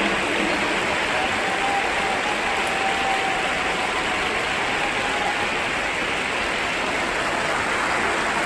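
Large stadium crowd of football supporters, a dense steady wash of cheering and clapping.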